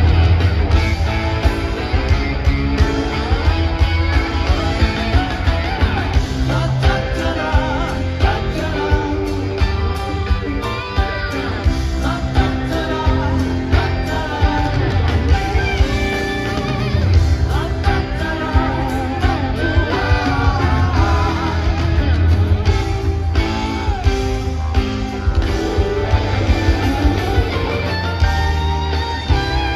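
A live rock band plays with electric guitars, bass, keyboards and drums, driven by a steady drum beat.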